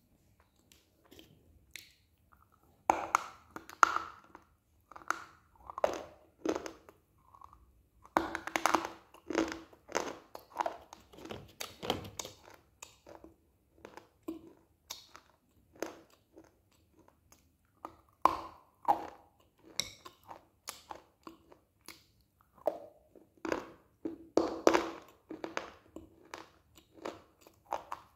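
Close-up bites and chewing of dry clay pieces: sharp, irregular crunches in clusters, with quieter chewing between them.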